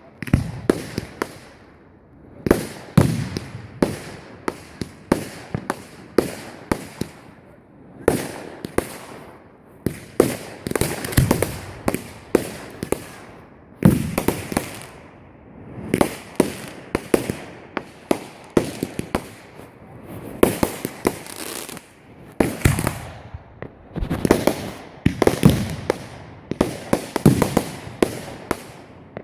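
Fireworks going off in quick succession: volleys of sharp cracks and bangs, each with an echoing tail, coming in clusters every second or two throughout.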